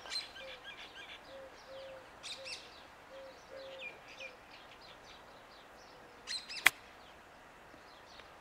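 Birds chirping, with a low, repeated cooing call under them in the first half. About two-thirds of the way through, a single sharp click, the loudest sound, as a golf wedge strikes the ball on a chip shot.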